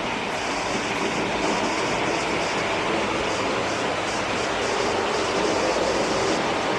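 OO gauge model train running along the track: a steady whirr of the motor and wheels on the rails, with a light, regular clicking over the rail joints.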